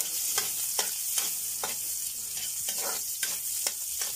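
Sliced onion and garlic sizzling in hot oil in a wok, with a metal spatula scraping and clinking against the pan about twice a second as they are stirred.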